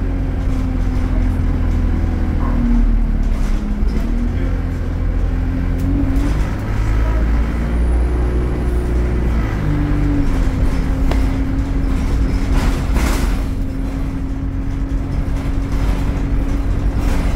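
Alexander Dennis Enviro200 single-deck bus's diesel engine heard from inside the saloon while driving, a steady drone over road noise. Its note dips and rises a couple of times in the first half, then holds level.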